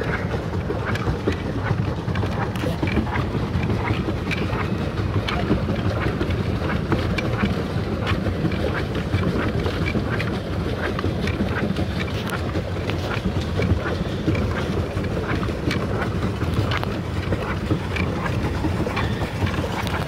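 Wind rumbling on the microphone out on a small rowing or pedal boat on a lake, with scattered light ticks throughout.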